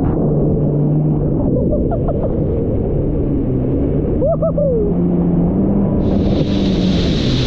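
Jet ski engine running under a heavy rumble of wind and water on the camera's microphone, its pitch shifting a little; a hiss of spray comes in about six seconds in.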